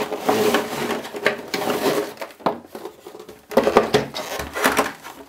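A cardboard box being opened and a clear plastic blister tray slid out and handled: rustling, scraping and crinkly plastic clicks, loudest around four seconds in.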